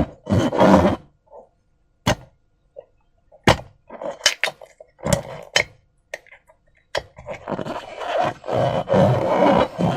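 Slime being handled: a few sharp snaps and clicks with short pauses between them, then from about seven seconds in a dense run of crackling, squelching noise.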